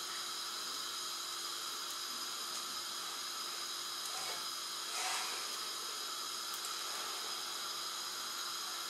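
Steady hiss with a faint, even hum, and one faint short rustle about five seconds in.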